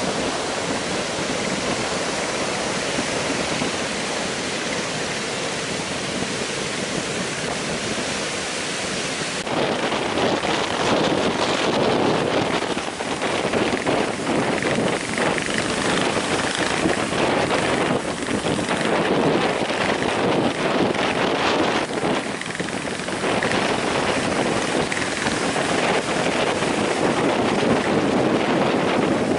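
Heavy surf breaking and washing in a strong onshore wind, with wind buffeting the microphone. About a third of the way in, the sound turns louder and gustier.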